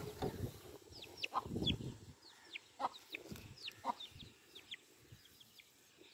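Young chicks peeping: many short, high-pitched, falling peeps, several a second, with some low rustling in the first two seconds.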